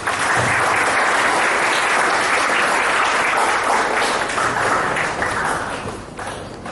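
Audience applauding, starting all at once and dying away near the end into a few scattered claps.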